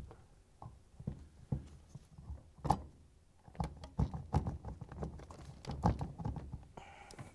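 Irregular knocks, taps and thumps of a dishwasher wash motor and its plastic volute being worked into the pump housing by gloved hands, busiest in the second half.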